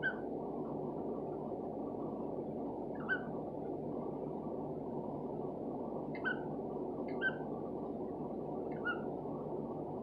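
Cockatiel giving five short, quiet chirps, a second to three seconds apart, over a steady low hiss.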